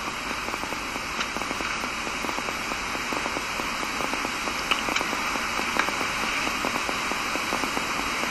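Steady hiss with light crackling and small clicks: the background noise of the recording itself.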